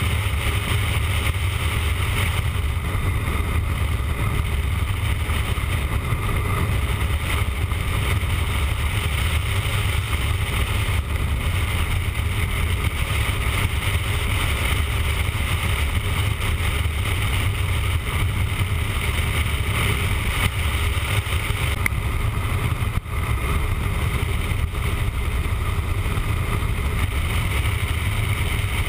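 Motorcycle at steady highway speed: a constant rush of wind on the bike-mounted camera microphone, mixed with engine and road noise.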